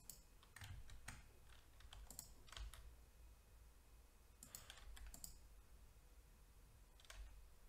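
Faint computer keyboard keystrokes and clicks, about eight to ten separate taps at irregular intervals, including a Ctrl+R shortcut.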